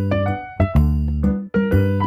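Background music: a keyboard tune of short struck notes over a low bass, in a steady beat.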